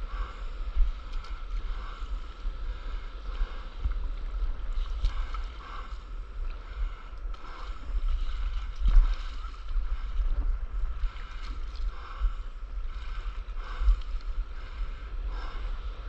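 Small waves lapping and sloshing close to a microphone riding low on the sea surface, in irregular soft splashes, over a steady gusty wind rumble on the microphone.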